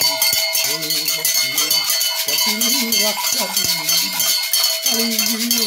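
Gourd rattles, one wrapped in a beaded net, and bunches of metal bells shaken fast and without pause, the bells ringing steadily over a dense rattle. A voice sings along in long held notes.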